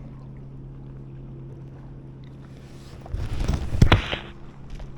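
Steady low drone of a motorboat engine running on the lake, with a loud rough burst of noise about three seconds in that lasts a little over a second.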